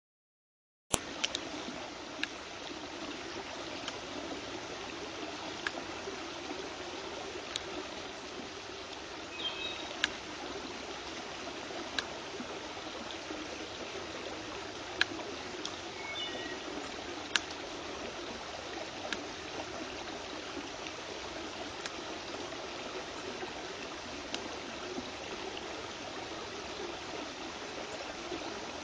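Brook water running steadily, with sharp knocks about every two seconds as a belted kingfisher beats a crayfish against the log it is perched on. The sound begins about a second in.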